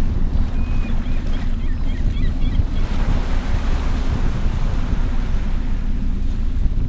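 Wind buffeting the microphone in a steady low rumble over ocean surf, with a wave washing in about three seconds in. A few short, high bird chirps come in the first few seconds.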